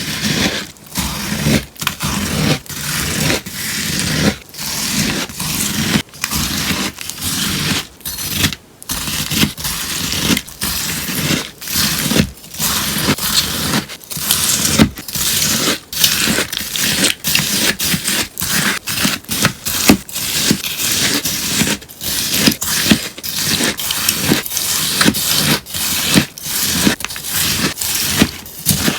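Melamine foam sponge being cut, a crisp 'shakishaki' scraping crunch repeated stroke after stroke with short breaks between.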